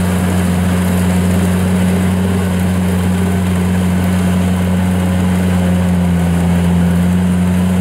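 Kubota DC70Plus combine harvester's four-cylinder V2403 diesel running steadily under load while cutting and threshing lodged rice, with an even, low engine note.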